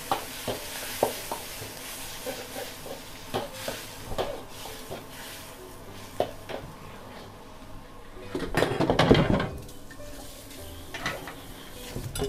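A metal ladle clanking and scraping in a wok while noodles are stir-fried, with sizzling in the hot pan at first. Single clanks come every second or so, and a louder spell of rapid scraping and clatter comes about nine seconds in.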